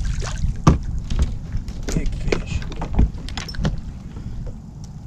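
Wind rumbling on the microphone, with a string of short sharp clicks and knocks as a freshly caught crappie is handled and unhooked; the knocks die away after about four seconds.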